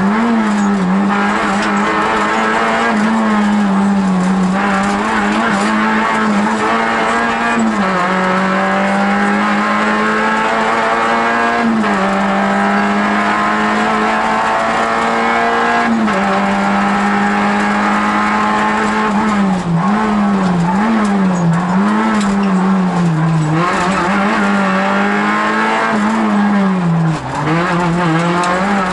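Rally car engine heard from inside the cabin, held at high revs under hard acceleration along the stage. The revs drop and climb again a few times, and waver rapidly through a series of corners in the second half.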